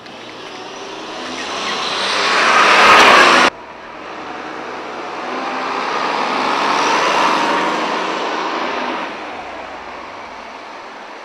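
Road traffic passing close: a vehicle's engine and tyre noise builds up and cuts off abruptly about three and a half seconds in, then a single-decker bus drives past, rising to its loudest about seven seconds in and fading away.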